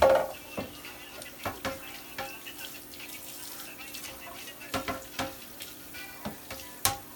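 Kitchen tap running as something is rinsed off under it in the sink, with scattered light knocks and clatter.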